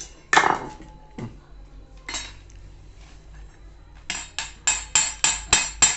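A dish or utensil being knocked: a clatter about a third of a second in, another near two seconds, then a rapid run of sharp clinks, about five a second, from about four seconds on.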